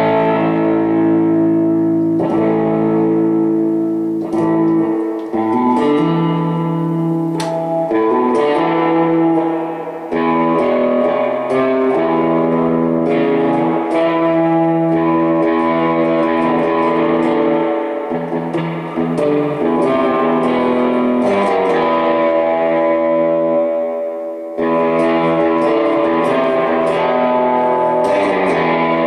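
Electric guitar, a Fender Jaguar, played through a Fulltone OCD overdrive pedal into a Gomez El Sonido 50-watt Bassman-style amp: ringing chords strummed with light overdrive, with a brief break near the end.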